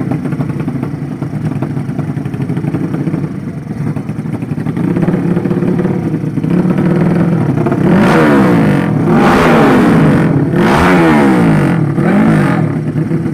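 Drag-racing motorcycle with a 200 cc horizontal-cylinder engine running steadily, then revved up and down about four times in quick succession before it settles back to a steady note.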